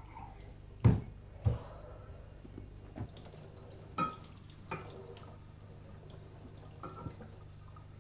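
Dishes and glasses being washed by hand in a kitchen sink: a series of knocks and clinks, the two loudest about a second in and one ringing briefly near the middle, with water dripping and splashing, over a low steady hum.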